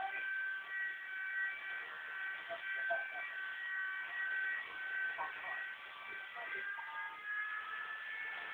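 Walkera 4G3 micro RC helicopter's small electric motors whining steadily at a high pitch, the pitch wavering slightly with throttle. A sharp click right at the end.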